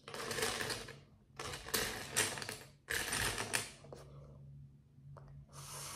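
Loose plastic toy building bricks clattering and rattling as a hand rummages through a pile of them, in about four short bursts.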